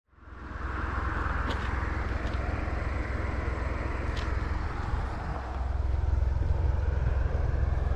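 Dacia Logan TCe 100's 1.0-litre three-cylinder turbo engine idling, heard from outside the car: a steady low-pitched running sound that fades in over the first second, with a few faint clicks.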